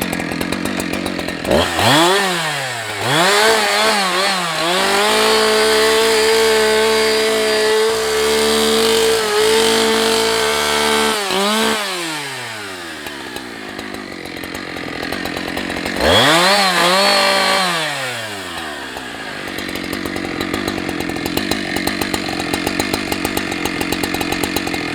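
Husqvarna 365 two-stroke chainsaw idling, then revving up and held at high speed for about six seconds before dropping back to idle. It gives a second short rev about sixteen seconds in and then settles back to idle.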